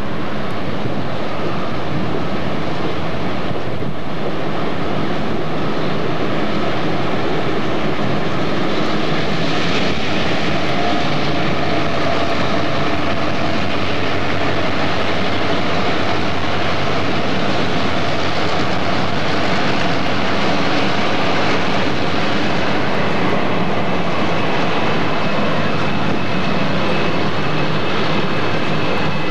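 Union Pacific diesel-electric locomotives running as they pull a train past, a loud steady engine drone with rail noise. A faint high steady tone joins in over the last several seconds.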